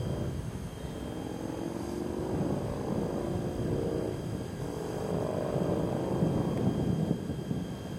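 Thunder rumbling and rolling, growing gradually louder over several seconds. A faint steady high whine runs under it, an audio disturbance which the uploader puts down to the high electricity in the air during the storm.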